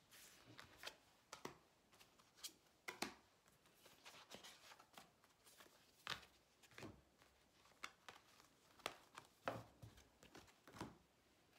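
Tarot cards being gathered up off a table and stacked in the hands: a faint, irregular string of short card slaps and swishes, about fifteen in all.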